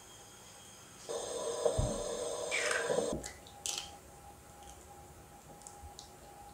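Hen's egg tapped sharply on the rim of a glass, then a few faint clicks of shell as it is pulled apart. Before the tap, a steady hum with several fixed tones runs for about two seconds and ends in a falling whine.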